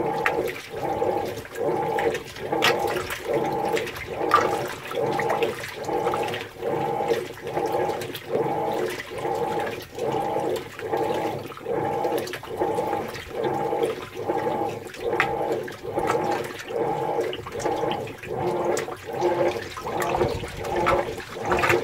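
Whirlpool Cabrio top-load washer agitating a load in deep water: the wash plate's drive hums in a steady back-and-forth rhythm, about three strokes every two seconds, with water sloshing against the clothes and tub.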